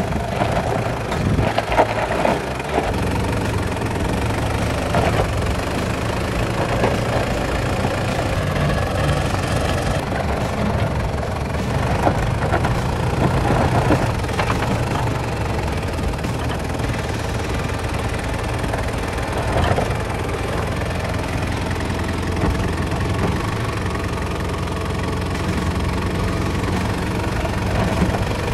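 A 90 Series Toyota Land Cruiser Prado's engine running steadily at low revs as the 4x4 crawls slowly over a rutted dirt trail, with intermittent crunching of dirt and stones under the tyres.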